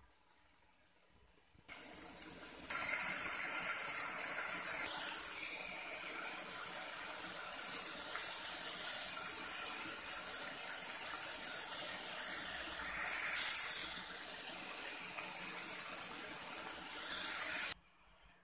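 Chopped onion and tomato sizzling in hot oil in a metal pot: a loud, hissing fry that swells and dips and cuts off abruptly near the end.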